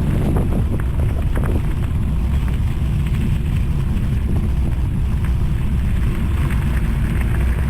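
Wind rushing over a GoPro's microphone while riding a bicycle at speed: a steady low rumble, with a few faint clicks in the first second or so.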